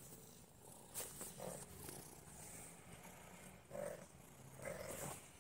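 Domestic cat purring faintly, with a few short soft sounds over it and a single click about a second in.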